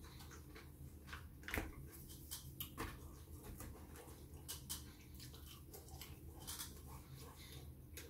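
Quiet close-up eating sounds: chewing and mouth noises, with scattered soft clicks as a plastic fork picks chips off a tray. Two clicks stand out, about one and a half and three seconds in.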